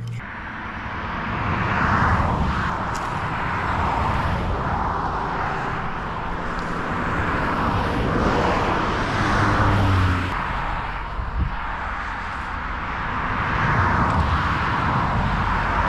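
Road traffic going by: passing cars whose tyre and engine noise swells and fades about three times.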